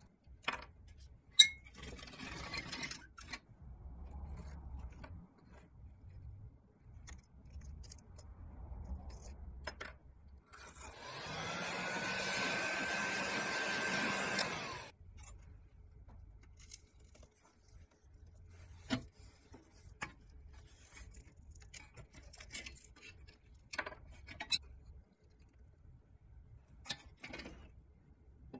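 Scraping and small clicks of a screwdriver prying at a rusted pressed-steel toy truck wheel. About ten seconds in, a power drill spins up with a rising whine, runs steadily for about four seconds, then stops. Scattered knocks and scrapes of the parts being handled follow.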